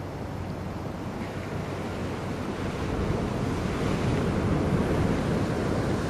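Sea water washing, with wind buffeting the microphone: a low, steady rushing noise that swells about halfway through and eases a little near the end.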